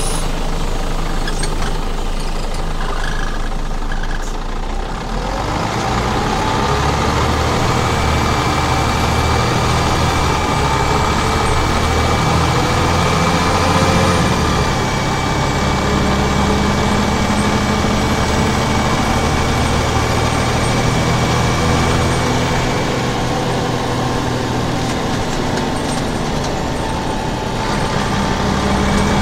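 Scania CN94UA OmniCity articulated bus's Scania DSC9 diesel engine with ZF 4HP590 automatic gearbox running and pulling away. The engine note grows from about six seconds in, rises, and drops back around fourteen seconds in. A thin steady high whine sounds over it for much of the run.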